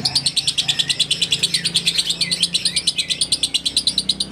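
Fischer's lovebird singing a long, unbroken chattering trill of fast, high notes, about a dozen a second: the continuous 'ngekek' chatter that lovebird keepers call konslet.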